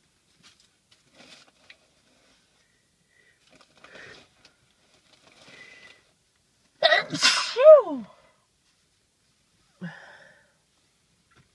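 A person sneezes once, loudly, about seven seconds in: a sharp rush of air ending in a voiced 'choo' that falls in pitch.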